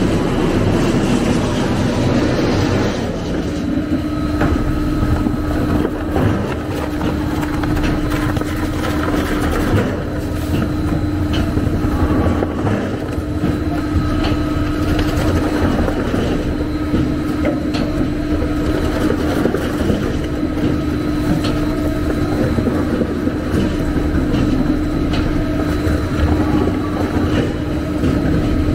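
Moving-hopper plastic shredder with a 37 kW motor running while it shreds PP woven bags and raffia: a loud, continuous machine noise with a steady hum, and occasional brief ticks.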